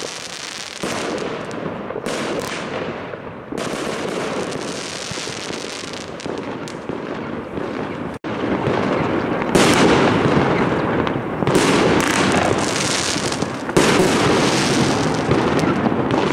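Fireworks going off: a dense, continuous crackle of bursts with sharper bangs every second or two. A momentary dropout comes about eight seconds in, and it is louder after it.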